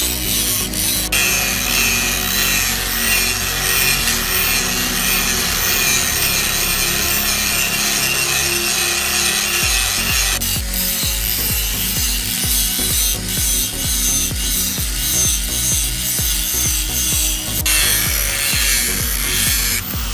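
Angle grinder disc grinding against the rusty steel head of a cross peen hammer held in a vise, a steady abrasive grinding of metal. Its tone changes abruptly about a second in, about halfway, and again near the end.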